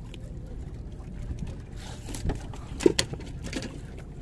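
Steady low rumble of a small fishing boat on the water, with wind and water noise, and a few sharp knocks and clicks between about two and three seconds in.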